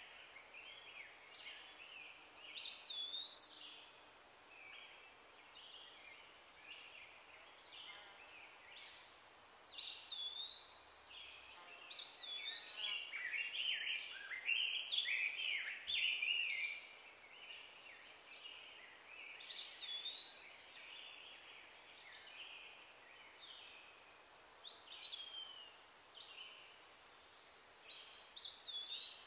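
Wild birds singing and calling in bouts a few seconds apart: quick chirps and whistled notes that swoop up and down, over a faint steady hiss.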